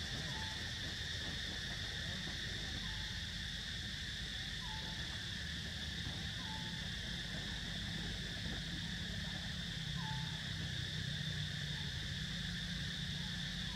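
Steady high-pitched drone of an insect chorus, with a short chirp-like call repeating every couple of seconds.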